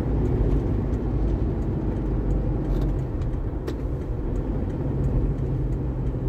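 Car driving along at a steady speed, heard from inside the cabin: a steady low rumble of engine and tyres on the road.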